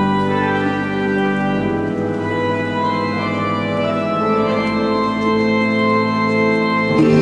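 Church organ playing slow, sustained chords that change every second or two, growing louder near the end.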